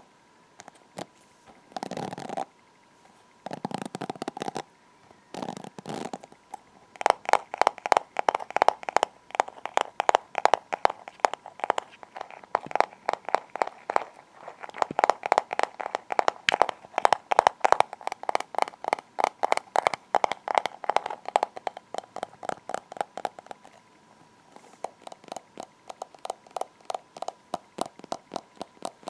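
Hairbrush strokes through hair close to the microphone: a few slower separate strokes, then from about seven seconds in a quick, even run of short brushing strokes, roughly three or four a second. The strokes grow fainter near the end.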